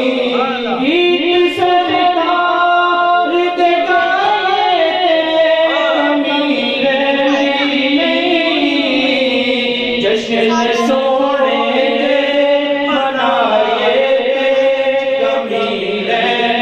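A man's voice singing a devotional chant into a microphone, in long drawn-out notes that slide up and down in pitch.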